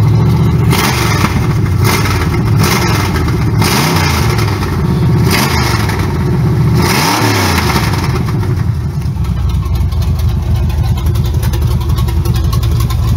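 Lifted 1977 Chevy Scottsdale pickup's V8 engine is revved in several short blips, rising and falling in pitch, then drops back to a steady idle about eight seconds in.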